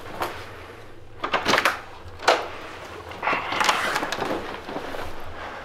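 A hotel room door being opened and let shut while someone leaves the room: a run of latch clicks and knocks, the sharpest a little past two seconds in, then about a second of rushing, rolling noise.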